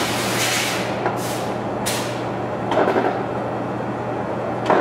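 Poreba heavy-duty engine lathe running, its slides driven in rapid traverse: a steady mechanical hum, with short hissing swishes about one and two seconds in and a sharp clunk near the end.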